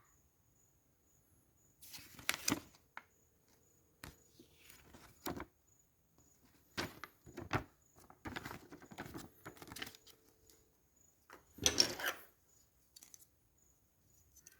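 Shaver box and packaging being handled and opened: irregular rustles, scrapes and small knocks, loudest about two and a half seconds in and again near the end.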